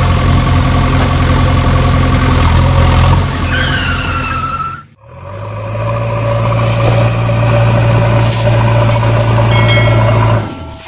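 A diesel-like engine running steadily at a low pitch, a sound laid under the toy loader footage. It cuts out abruptly about five seconds in and again briefly near the end, with a short falling whistle just before the first cut.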